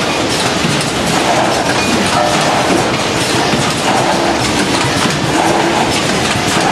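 Automatic packaging machines and conveyors running together, making a loud, steady mechanical clatter of rapid clicks.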